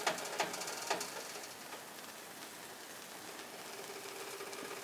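Spanish omelette of egg and cubed potato sizzling in olive oil in a frying pan, a low steady crackle. Three brief sharp sounds come in the first second.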